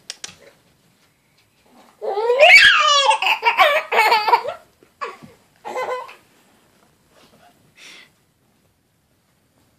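Baby laughing: a long run of high-pitched belly laughs starting about two seconds in, followed by two shorter laughs and a faint one near the end.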